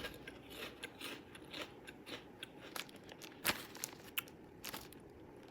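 Close-up crunching and chewing of crispy layered corn chips (Turtle Chips, flaming lime flavor): irregular crisp crackles, with one sharper crunch about three and a half seconds in.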